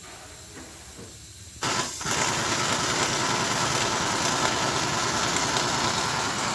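Impact wrench starting about a second and a half in and running steadily, driving home the bolts on the end plate of a Hyva FE 129 three-stage tipper hydraulic cylinder.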